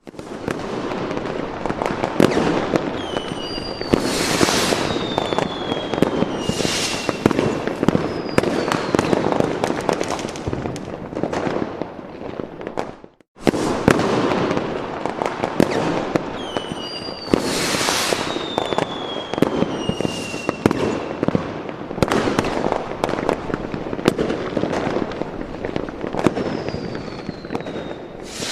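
Fireworks and firecrackers: a dense, rapid crackle of sharp pops, with hissing bursts and several whistles that fall in pitch. About 13 seconds in it cuts out for a moment and the same sequence starts again.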